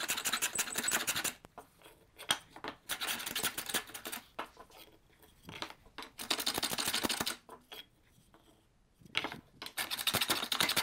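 Old Stanley No. 78 cast-iron rabbet plane shaving down the cheek of a wooden tenon: four scraping strokes, each about a second and a half long, with light knocks as the plane is set back between strokes.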